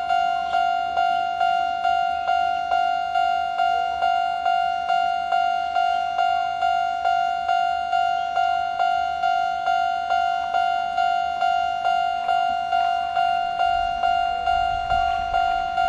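Japanese railway level-crossing warning bell, the old standard electronic "kan-kan" tone, ringing at its normal tempo. It gives about two dings a second, each one fading before the next.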